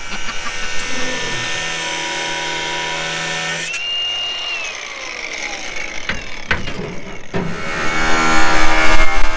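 Milwaukee cordless angle grinder running with a steady whine. About four seconds in it winds down with a falling whine, then it grinds into rusted steel truck frame, growing louder near the end.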